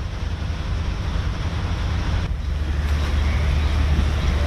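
Steady rush of heavy rain with wind rumbling on the microphone, swelling a little in the second half.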